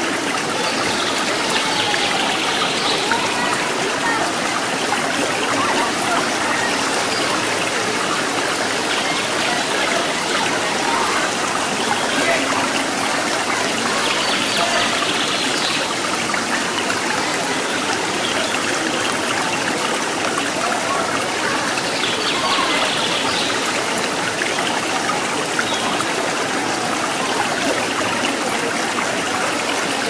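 Steady rush of flowing water, with a crowd's voices rising over it now and then.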